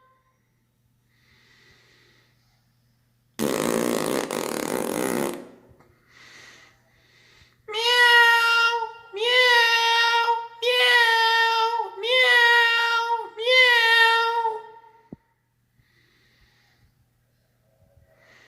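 A rough fart of about two seconds, then five drawn-out cat meows made by a person's voice, one after another.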